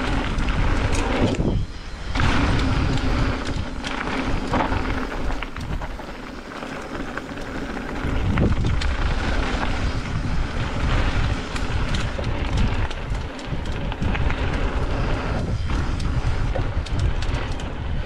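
Mountain bike descending a dirt flow trail: steady tyre and wind noise with a heavy rumble, broken by frequent clicks and knocks from the bike over bumps.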